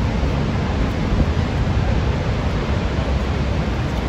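Steady rushing roar of Niagara Falls' Horseshoe Falls, heard from above, with wind gusting on the microphone.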